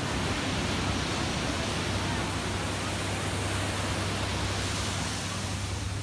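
Ocean surf breaking and washing up the beach, a steady rushing hiss.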